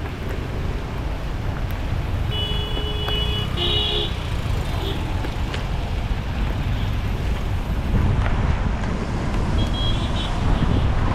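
Wind rumbling on the microphone over road traffic noise while cycling, with a vehicle horn honking briefly twice about two and a half to four seconds in and a short horn toot near the end.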